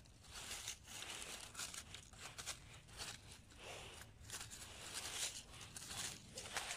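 Fallen leaves rustling and crunching underfoot or under hand, in irregular bursts.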